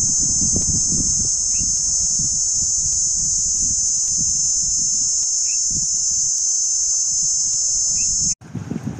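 Cicadas in the hillside vegetation, a loud, steady, high-pitched drone that cuts off abruptly near the end. A low, uneven rumble runs beneath it.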